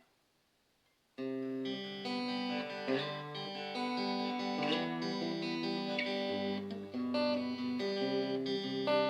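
Donner DST-1 Strat-style electric guitar played through a small 3-watt practice amp on its clean channel. The playing starts about a second in, with chords and single notes left to ring into each other.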